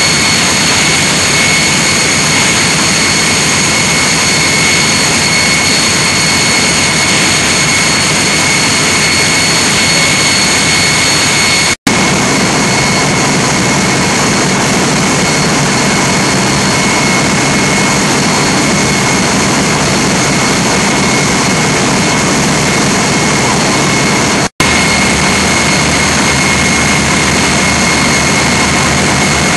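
Engine 9, a large stationary power-plant generating engine, running steadily under test: a loud, even engine noise with a steady high whine over it. The sound drops out for an instant twice.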